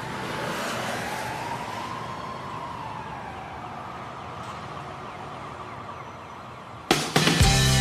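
A siren wailing, one slow rise and fall in pitch, over a steady rushing noise. Music starts abruptly near the end.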